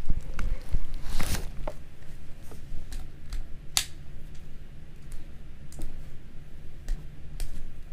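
Scattered clicks and knocks from handling a Shimano Curado DC baitcasting reel with an empty spool, over a low steady hum; the reel's DC braking whine does not come.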